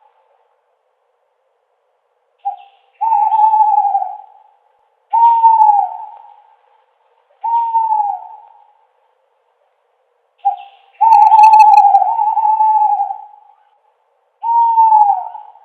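An owl hooting: about six hoots, each about a second long, held on one pitch and then dropping away, with a short pick-up note just before two of them.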